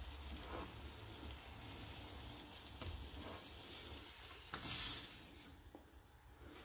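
Buttered bread slices frying in a pan, sizzling steadily, with a brief louder swell of hiss about four and a half seconds in before it quietens.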